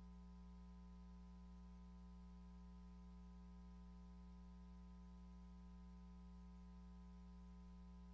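Near silence: only a faint, steady low hum.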